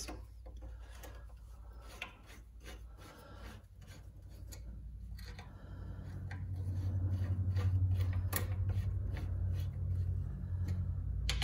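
Light clicks and rubbing of hand tools and metal parts as a thickness planer's bevel-gear height mechanism is put back together and tightened, with a low, fluttering hum coming in about halfway and growing louder.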